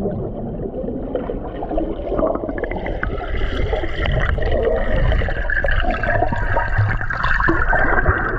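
River water flowing, a steady noise close by.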